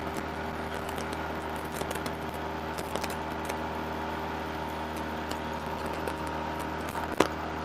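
Small outboard motor on an inflatable dinghy running steadily, with a single sharp knock near the end.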